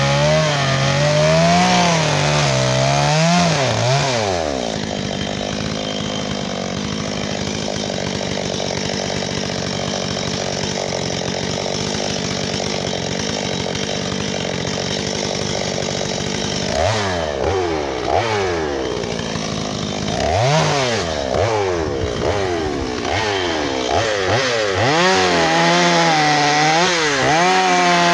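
Gas chainsaw carving into wood. The engine revs up and down with the throttle for about four seconds, holds one steady pitch through a long cut for about twelve seconds, then goes back to revving up and down.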